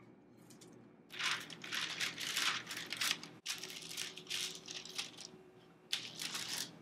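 Sheets of wax paper rustling and crinkling as they are handled and pressed down by hand over a lump of pastry dough. The crinkling starts about a second in as a quick run of short crinkles, goes on more softly, and ends with one more crinkle near the end.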